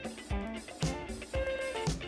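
Background music with a steady beat, about two drum hits a second.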